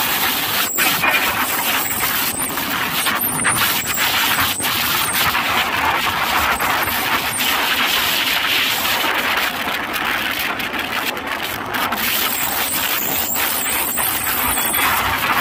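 Steady rushing of wind and road noise while riding a Suzuki scooter along a city road, with a few brief clicks and knocks on the microphone.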